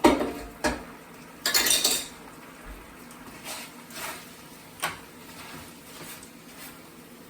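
A spoon knocking and scraping against a cooking pot while quinoa is dished out. There are two sharp knocks at the start, a longer scrape about one and a half seconds in, then a few lighter taps.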